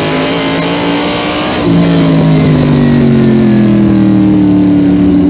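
SK modified race car's small-block V8 heard from inside the cockpit at racing speed, loud and straining. It eases slightly, then comes back hard on the throttle about a second and a half in and holds there.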